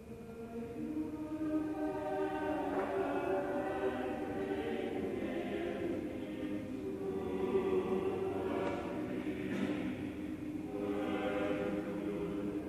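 Church choir singing slow phrases of long held notes, coming in at the start and swelling over the first couple of seconds.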